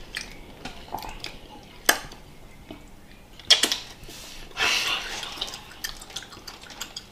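Close-up mouth sounds of a child eating a gummy candy: wet smacks and sucking clicks. Two sharper clicks come about two and three and a half seconds in, then a brief hiss.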